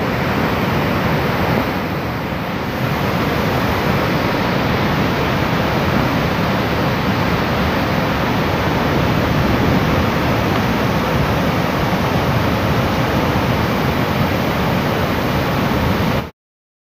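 Floodwater of the Kaveri River pouring over the falls: a loud, steady roar of rushing water that cuts off suddenly near the end.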